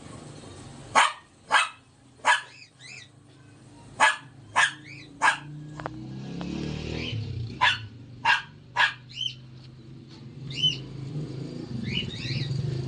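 A dog barking: sharp, loud barks in quick groups of three, three groups in all, with fainter high calls in between.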